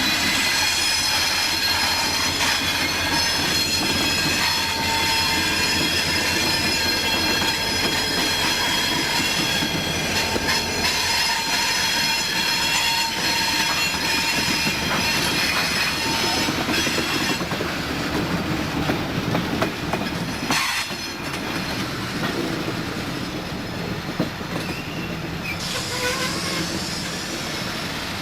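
Freight train rolling past, its steel wheels squealing against the rails over a steady rumble. The high squeal fades about two-thirds of the way through.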